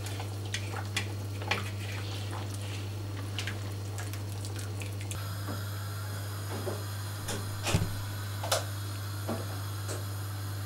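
Broth dripping and a utensil clicking a few times against the cast-iron kazan as boiled pork knuckles are lifted out of the pot, over a steady low hum. After about five seconds the background changes, and there are a few scattered knocks and clicks.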